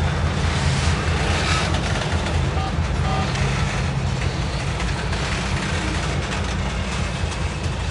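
CSX diesel locomotive running mid-train in a slow coal train as it passes, giving a steady low engine drone over the continuous rumble of the hopper cars' wheels on the rails.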